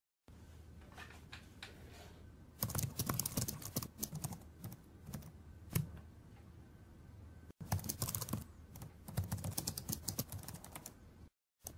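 Rapid, irregular clicking in bursts, like keys being typed, growing louder a few seconds in, broken once briefly about halfway and cutting off near the end.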